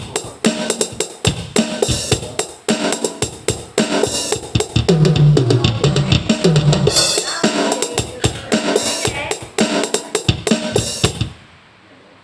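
Drum-kit sounds from a Roland SPD-20 electronic percussion pad played through a loudspeaker: a busy pattern of kick, snare and cymbal hits. The pad's output has been repaired after it crackled. The pattern stops abruptly near the end.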